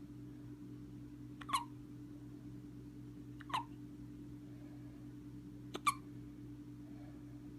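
A young child hiccuping three times, about two seconds apart, each hiccup short and sharp, over a steady low hum.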